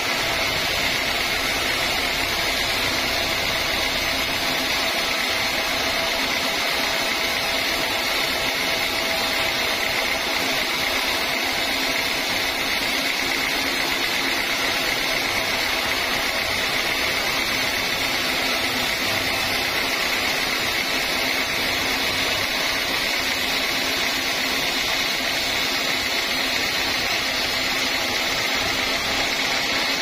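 Band sawmill blade running and cutting lengthwise through a large teak log. It makes a steady, unchanging whine over constant sawing noise.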